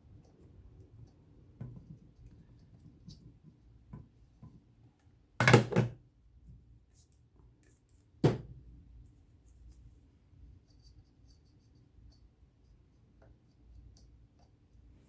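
Handling noises from a metal sewing machine being cleaned: faint rubbing and small clicks, with a quick cluster of loud knocks about five and a half seconds in and one more sharp knock a few seconds later.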